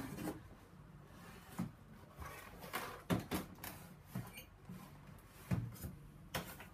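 Cardboard packaging being pulled and worked out of a tightly fitting cardboard box: irregular scraping and rustling of cardboard with a few sharp knocks.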